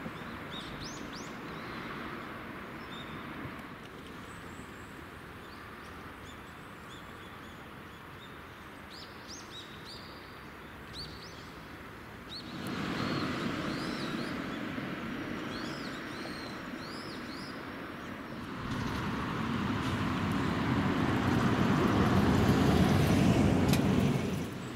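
Small birds chirping over a steady outdoor rushing noise. The noise steps up about halfway through and again later, becoming the loudest thing near the end.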